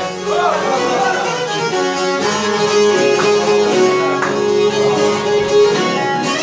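Live Albanian folk instrumental music: a violin plays an ornamented melody with wavering pitch over accordion, with steady held notes beneath.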